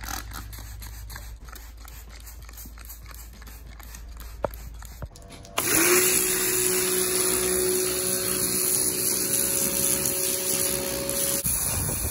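A hand trigger spray bottle squirted rapidly, about four squirts a second, onto a truck's front differential. About halfway through, a pressure washer starts: a loud steady spray hiss with a steady whine under it as the jet blasts grime off the differential.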